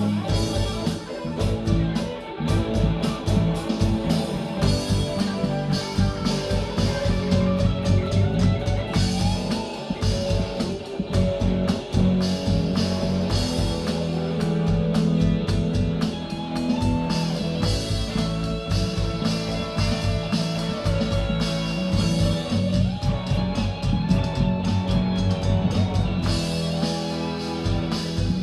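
Live band playing rock music, led by electric guitars with keyboards.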